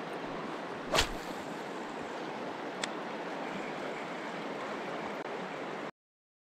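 Steady rush of a mountain river's flowing water, with one sharp knock about a second in and a faint click near three seconds. The sound cuts off abruptly shortly before the end.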